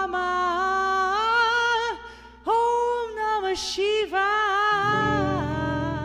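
Solo voice singing long, drawn-out notes without clear words, with a short gap about two seconds in. A low held tone comes in underneath near the end.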